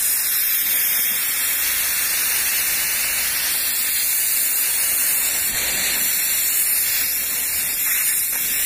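Nitrogen test pressure being vented from a car's A/C system through the service hoses: a steady, loud hiss of escaping gas. The system had held the pressure in a leak test after a compressor valve repair.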